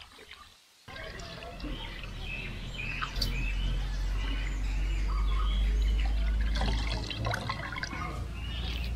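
Small birds chirping over a steady low rumble, with water splashing and squelching as washed goat tripe is squeezed by hand in a clay pot of water.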